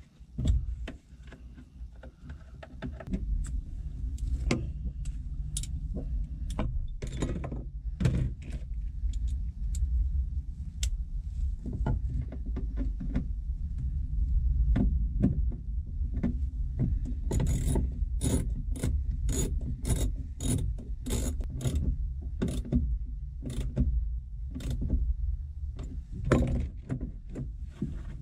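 Hand tools clinking and a socket ratchet clicking while the accelerator pedal assembly is unbolted. A run of evenly spaced ratchet clicks comes about two-thirds of the way through, over a steady low rumble.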